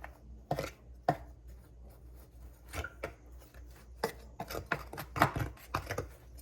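Irregular clicks, taps and knocks of kitchen utensils and dishes being handled while a flour and cornmeal dredge is mixed, a few strikes louder than the rest.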